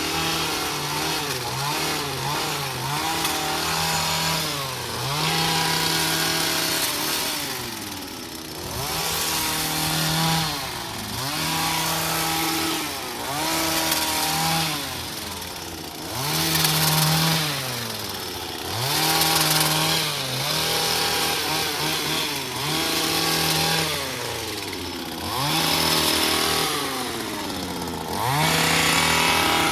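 Small two-stroke engine of a handheld power tool, throttled up to high speed and let back down again and again, with its pitch falling and climbing every second or two. A rasping cutting noise rises with each burst of high speed.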